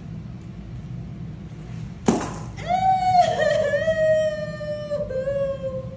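A sharp thump about two seconds in as a woman drops to the floor, then her long, high fake crying wail, slowly falling in pitch with a couple of catches. This is the pretend fall-and-cry of a puppy temperament test, meant to see whether the puppy comes to comfort her.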